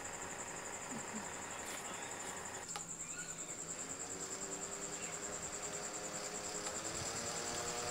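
Small fan motor of a portable mist air cooler running, with a high, pulsing whine. About a third of the way in the sound cuts to the fan after its speed modification, and its motor hum rises steadily in pitch and grows louder.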